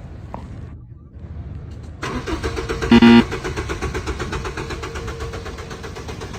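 Car engine cranking and starting about two seconds in, then running with a fast, even beat. A short, loud tone sounds about a second after it starts.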